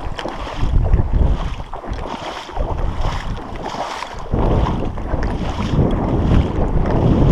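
Wind buffeting the camera microphone: a loud, uneven rumble that dips for a couple of seconds in the middle and then rises again.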